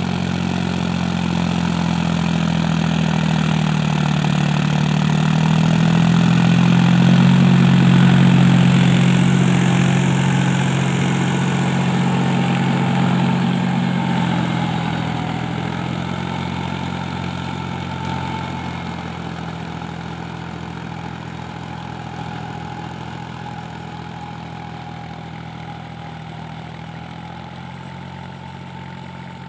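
Farmtrac Euro 47 hp 4x4 tractor's diesel engine running steadily while driving a rotary tiller through dry soil. It grows louder as the tractor draws close, peaking about seven or eight seconds in, then fades gradually as it moves away.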